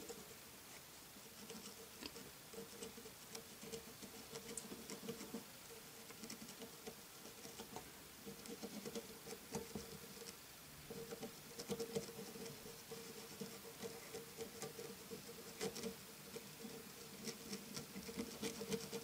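Faint, irregular scratching and tapping of a Molotow Liquid Chrome 4 mm marker nib dabbed and rubbed over a small plastic toy head, over a steady low hum.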